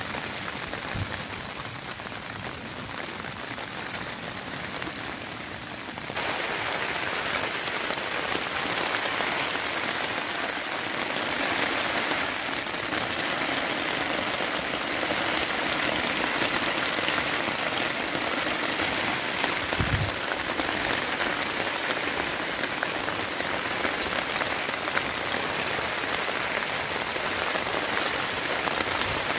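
Rain falling on a tent, a steady dense hiss of drops that gets louder about six seconds in. A single low thud comes about twenty seconds in.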